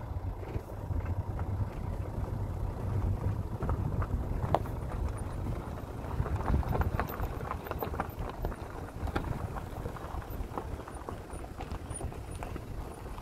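Wind buffeting the microphone with a low rumble, and many irregular light clicks and taps from footsteps and handling of a handheld camera on grassy, stony ground.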